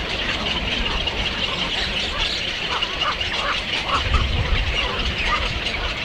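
Many birds calling at once, a dense steady chatter with short repeated calls, over a low rumble.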